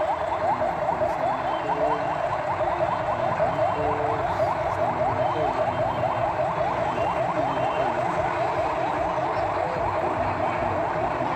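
Police patrol vehicle's electronic siren in rapid yelp mode: quick rising sweeps repeating several times a second. It is loudest for the first few seconds, then goes on more faintly.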